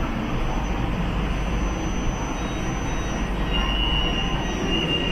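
Siemens Inspiro electric metro train running, heard from on board: a steady rumble of wheels on the track and running gear. A thin, high squeal comes and goes over the last second or two.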